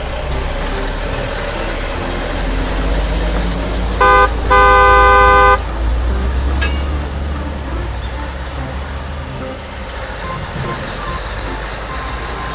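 Steady motor-vehicle or traffic rumble, with a vehicle horn honking twice about four seconds in, a short toot followed by a longer one lasting about a second.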